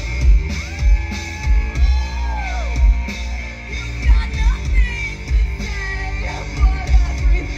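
Live punk rock band playing loud: distorted electric guitar, bass guitar and a drum kit with heavy kick-drum hits, and a sung vocal, heard from the crowd through a festival PA.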